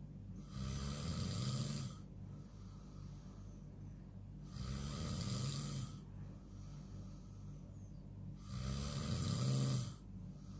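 A person snoring: three snores about four seconds apart, each a low rattling buzz with hissing breath lasting about a second and a half.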